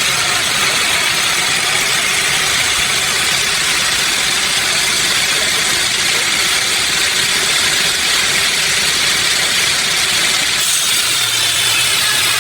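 Sawmill machinery running with a steady, loud, hissing mechanical noise. The sound changes abruptly near the end, and a low hum comes in.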